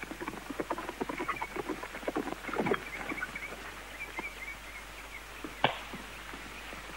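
Horses' hooves on dry dirt as riders come in and pull up, an irregular patter of knocks, with one sharp knock about five and a half seconds in.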